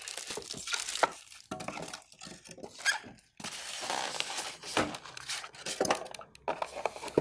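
Hands unpacking a plastic-bagged MIDI keyboard from its styrofoam end caps: the plastic bag crinkles and rustles, the foam rubs against the keyboard, and there are scattered light knocks and clicks of handling.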